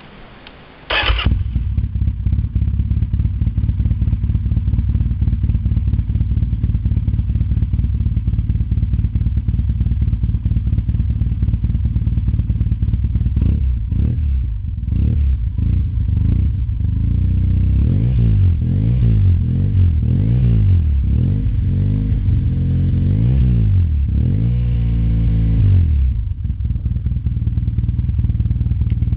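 Yamaha TDM850 parallel-twin engine firing up about a second in through a Dominator slip-on muffler with its dB killer removed, then idling with a loud, open exhaust note. In the second half the throttle is blipped again and again, about one rise and fall a second, before it settles back to idle.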